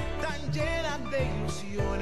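A male vocal group singing a Christmas carol (villancico), with several wavering voices over sustained low bass notes.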